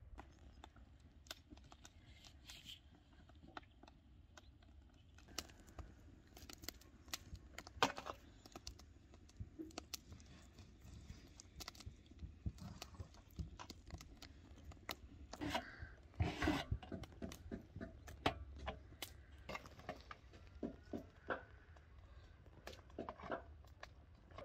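Scattered faint clicks and knocks of a kitchen knife cutting raw meat on a metal tray, the blade tapping against the tray, denser a little after the middle.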